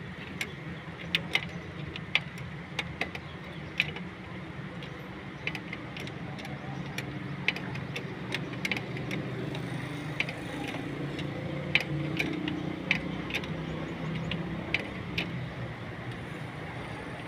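Sharp metallic clicks and taps of a hand wrench working on fittings in a car's engine bay, coming irregularly, one or two a second, over a steady low hum.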